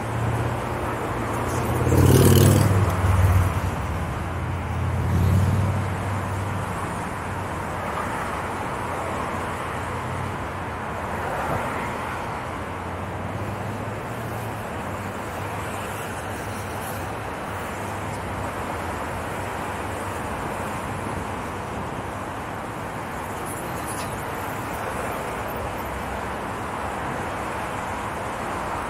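Steady road traffic from car lanes alongside, with a low rumble throughout. A louder vehicle passes about two seconds in, its pitch falling as it goes by, and another swells briefly soon after.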